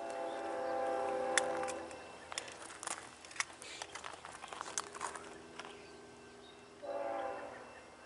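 Distant BNSF locomotive horn sounding for a grade crossing: a long blast at the start, fainter tones through the middle, then a shorter blast about seven seconds in. A few sharp clicks are scattered through the middle.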